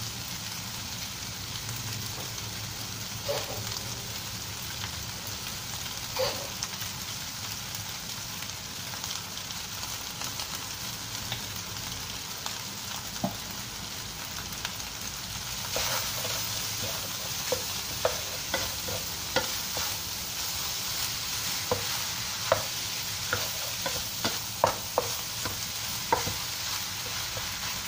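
Fried rice sizzling in a non-stick wok, a steady hiss; about halfway through a wooden spatula starts stirring and tossing the rice, with repeated short scrapes against the pan, and the sizzle grows a little louder.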